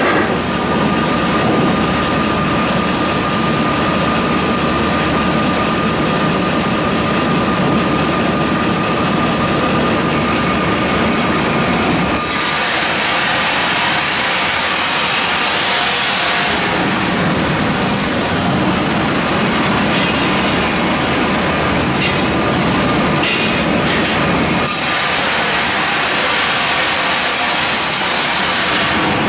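Mebor horizontal band sawmill running and sawing a softwood log: a loud, steady mechanical din with a thin steady whine through the first twelve seconds or so. Twice the sound turns to a brighter hiss for a few seconds.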